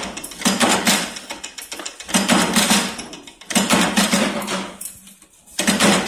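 Small bench press in a furniture-hardware workshop, running in repeated bursts as parts are worked. Each burst is a fast metallic rattle that starts suddenly and fades over about a second. There are about four bursts, one every second and a half or so.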